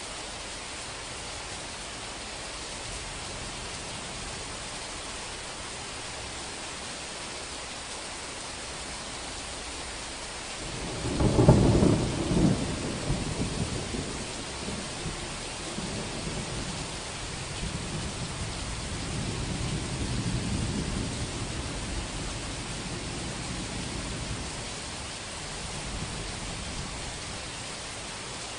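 Steady hiss of heavy rain. About eleven seconds in, a loud clap of thunder breaks out and rolls on as a low, uneven rumble for more than ten seconds before it dies back under the rain.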